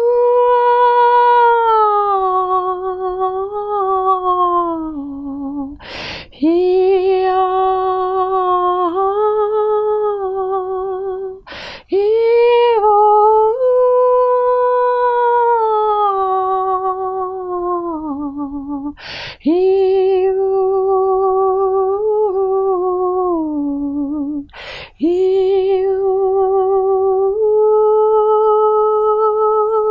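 A single voice humming long, wordless held notes that step up and down between pitches with a slight waver, with a quick breath between phrases four times.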